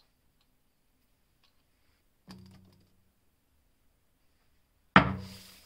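Two knocks on the cast-iron frame of an old balance scale, a light one and then a much louder one near the end. Each leaves a short metallic ring that dies away within about half a second.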